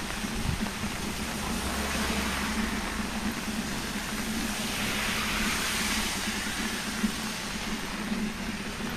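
Tyres of passing vehicles hissing on a rain-soaked road, one swelling louder as it goes by about five seconds in, over a steady hiss of rain.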